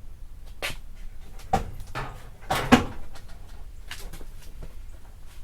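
A few separate sharp knocks and clatters of car body parts being handled and fitted: one about half a second in, another about a second and a half in, and the loudest, a quick double knock, a little past halfway.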